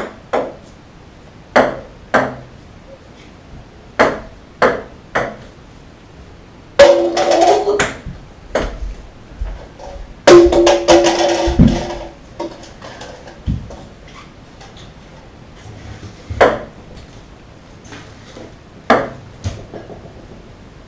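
Ping-pong balls bouncing on a wooden table and hitting plastic cups: sharp single clicks with a short ring, coming irregularly, some in quick pairs. Twice, near a third of the way in and again about halfway, a louder sustained sound lasts a second or two.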